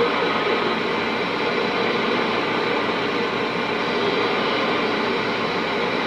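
Steady static hiss from a Galaxy CB radio's speaker tuned to channel 6, with faint, unreadable distant voices buried in it. The S-meter sits near zero: the skip conditions have faded and the signals are too weak to copy.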